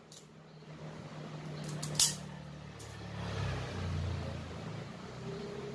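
A vehicle engine runs nearby as a low rumble that swells and fades between about three and four and a half seconds in. One sharp click about two seconds in.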